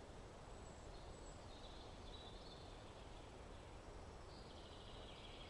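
Quiet forest ambience: a small songbird sings faint, high phrases, one in the middle and another starting near the end, over a low steady rumble.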